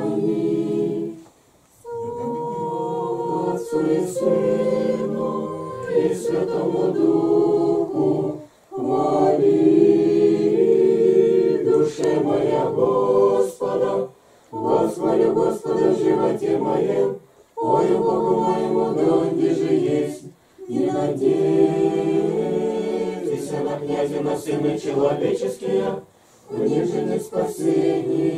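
A small mixed group of men and women singing an unaccompanied Orthodox liturgical chant in Church Slavonic. It goes in sustained phrases with short breath pauses between them, about every three to six seconds.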